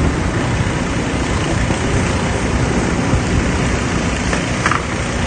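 Strong wind buffeting the microphone, a loud, steady low rumble that flutters unevenly.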